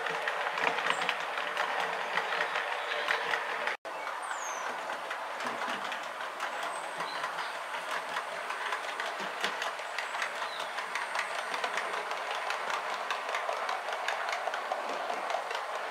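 Model train running along the track, its wheels clicking over the rail joints in a fast, steady patter. The sound drops out for an instant about four seconds in.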